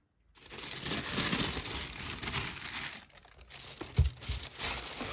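Tissue wrapping paper crinkling and rustling as a hand moves around inside a cardboard shoebox, with a short dull thump about four seconds in.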